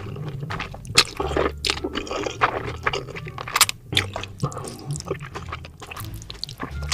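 Close-up wet chewing of spicy instant noodles, with irregular smacking and squishing mouth sounds.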